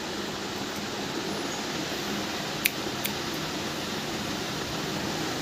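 Steady hiss of room noise with two sharp clicks about a third of a second apart near the middle.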